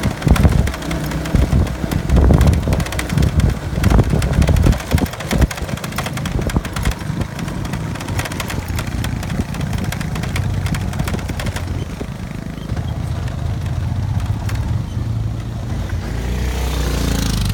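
Motorbike engine running on a rough, muddy dirt track, with many jolts and knocks from the bumps in the first few seconds. Later it settles into a steadier low engine hum.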